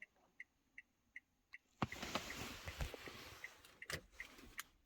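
Rapid electronic beeping, about two and a half short beeps a second. From about two seconds in, a rustling noise and a few sharp clicks join it.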